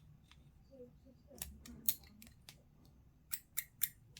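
Plastic miniature parts being snipped with sprue cutters: a series of sharp snips, the last three in quick succession.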